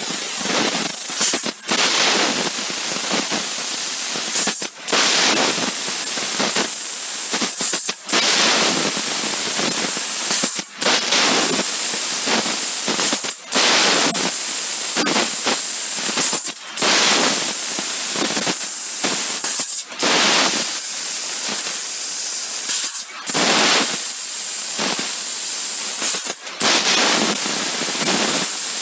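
Fiber laser cutting machine cutting stainless steel plate: a loud, steady high hiss of assist gas from the cutting head's nozzle. It cuts out briefly about every three seconds, between one cut and the next.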